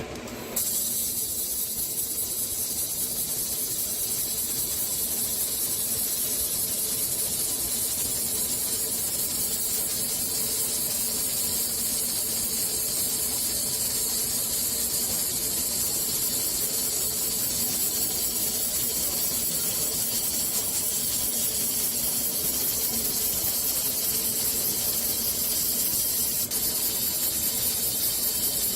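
Laser welding machine running: a steady high hiss that starts suddenly about half a second in, with a faint steady hum underneath.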